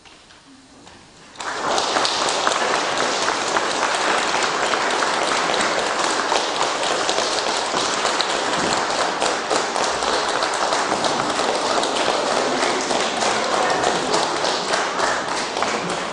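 Audience applauding. The clapping starts suddenly about a second and a half in, after a quiet moment, holds steady, and begins to die down near the end.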